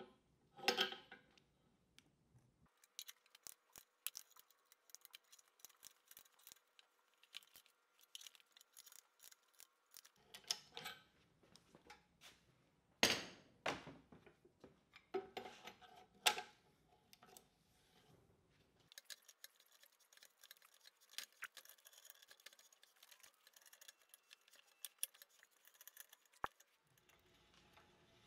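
Hand ratcheting pipe threader working a black iron pipe held in a pipe vise: scattered ratchet clicks and metal clinks, with a few sharper knocks about a second in and again around 13 and 16 seconds.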